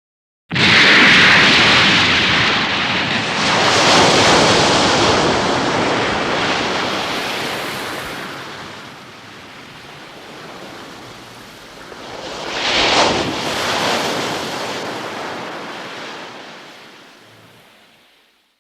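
Dragon Ball Z anime water sound effect: a loud rush of crashing water like heavy surf. It starts suddenly, swells again about four seconds in and once more in a sharp surge near thirteen seconds, then fades away.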